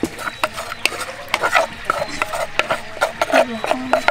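A spoon scraping and knocking inside a mortar as wet tomato and chili dressing is emptied into a stainless steel mixing bowl, with quick irregular clicks, scrapes and wet slops.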